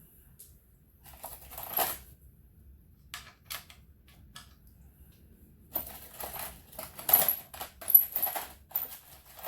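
Metal hand tools and parts clinking and clicking irregularly, a few scattered clicks at first and a busier run of bright metallic clinks in the second half.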